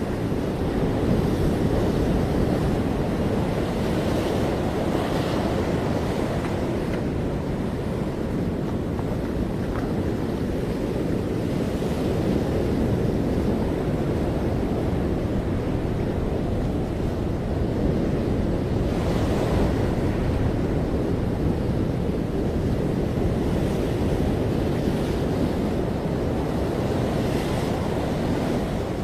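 Ocean surf breaking on a beach: a continuous wash of water, with a fresh wave breaking and hissing every several seconds.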